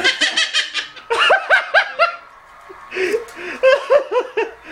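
Laughter in three runs of quick, rising-and-falling 'ha-ha' notes, the first one the fastest.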